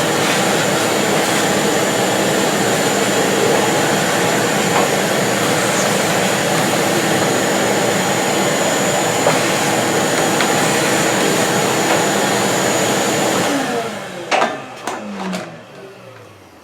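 Vacuum cleaner running steadily as it sucks packed debris out of a tractor's radiator fins, then switched off about 13 to 14 seconds in, its motor whining down in pitch, with a few clicks as it is handled.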